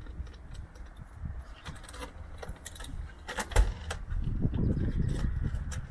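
Low rumbling noise, like wind on the microphone, with scattered light clicks and taps and one louder knock about three and a half seconds in.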